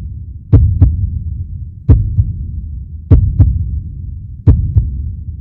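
MOHR BC-330 three-knife trimmer running through its cutting cycle: a pair of sharp knocks, a loud one then a softer one, about every 1.3 seconds, over a low hum.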